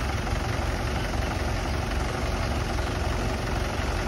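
Tractor diesel engine running steadily, a low, even sound with no change in speed.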